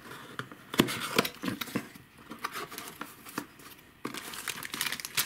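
A small cardboard retail box being opened by hand: scattered clicks and scrapes of the flaps and card being handled, then denser crinkling from about four seconds in as the packaging inside is pulled out.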